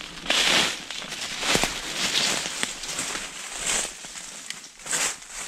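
Footsteps on dry leaf litter and brush, with leaves and twigs rustling, in irregular steps roughly once a second.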